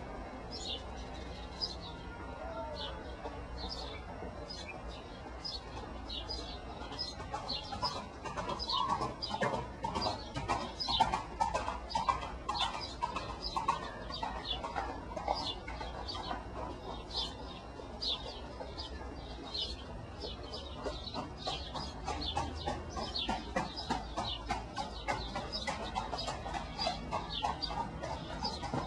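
Birds chirping: many short, high chirps repeat all through, with louder, lower calls in the middle stretch.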